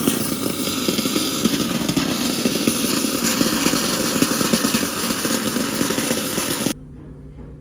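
A power tool runs with a steady, rough grinding buzz, then stops abruptly near the end.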